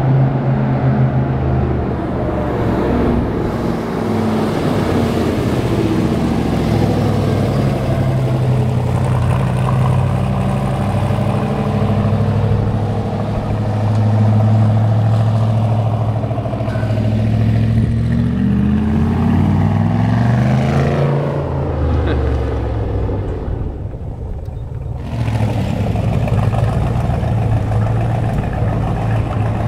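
1965 Corvette Sting Ray's 396 big-block V8 running through its side-mount exhaust with a steady low engine note. A little over halfway through it revs up with a rising pitch, eases off briefly, then pulls again near the end.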